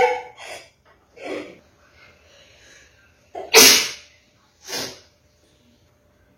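A person sneezing: a loud sneeze about three and a half seconds in and a second one about a second later, after a smaller sneeze or sniff near the start.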